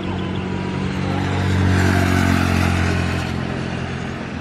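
Engine noise of a passing vehicle, swelling to a peak about two seconds in and then fading, over a steady low engine drone.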